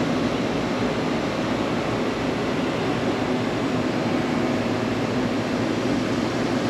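Steady whir of air-conditioning units running, an even rushing noise with a faint low hum and no breaks.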